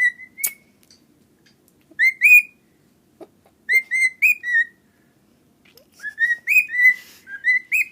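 Pet bird whistling in short phrases of clear, slurred notes: four bursts separated by pauses, the last one longest, near the end. A single sharp click about half a second in.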